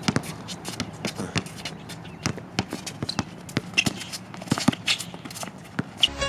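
A basketball being dribbled on an outdoor hard court, repeated bounces at an uneven pace, mixed with the players' sneakers shuffling and stepping as one drives against the other's defence.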